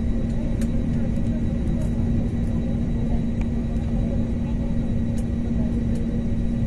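Inside a jet airliner's cabin during the takeoff roll: engines at takeoff power and the wheels rumbling on the runway, a loud, steady noise with one steady hum running through it.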